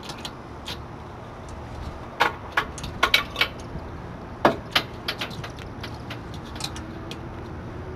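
Irregular metallic clicks and clinks of hose cam-lock fittings being handled and connected, over a steady low background hum.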